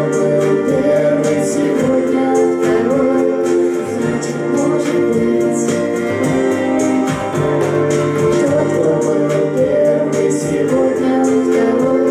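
Live band music: sustained keyboard chords under singing, with a steady percussion beat.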